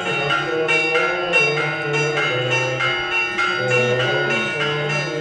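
Orthodox monastery church bells ringing in a continuous peal, struck about twice a second, with low sustained notes of men chanting beneath.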